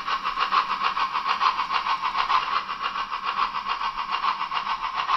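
H0-scale model of the class 498.1 Albatros steam locomotive running, with a rapid, even chuffing of about five beats a second.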